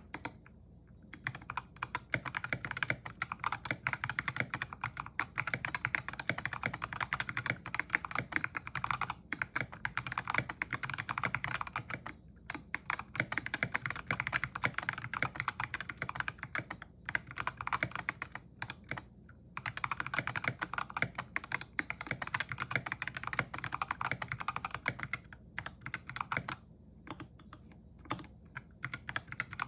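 Fast typing on a 60% mechanical keyboard with Ajazz Kiwi tactile switches and tall SA-profile keycaps: a steady rattle of keystrokes, the runs broken now and then by brief pauses. The board is tape-modded and its stabilizers lubed.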